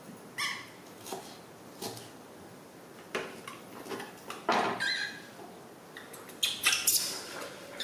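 A baby monkey giving a few short, high squeaks, spaced out, with soft knocks and clatter from chopped green peppers being handled in a bowl.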